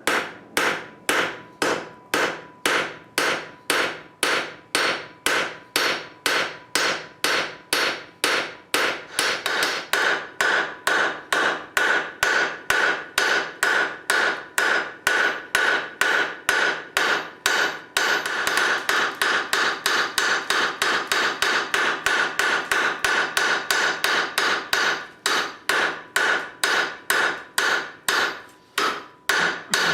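Blacksmith's hand hammer striking steel on an anvil in a steady rhythm, about three blows a second, with a ringing note between blows, while forging a failed forge-weld piece into a flux spoon.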